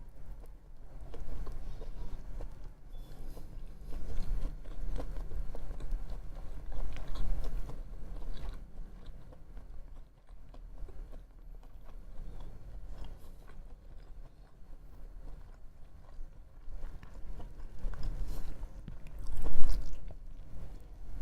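Close-miked chewing and biting of sushi, in irregular bouts with short pauses, loudest near the end.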